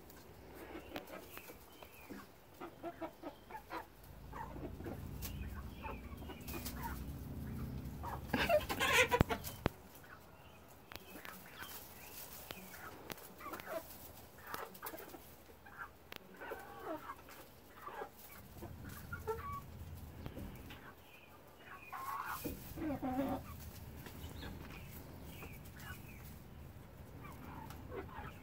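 A small flock of young hens clucking and giving short calls as they peck at a clump of grass, with a louder burst of calls about nine seconds in and another around twenty-two seconds.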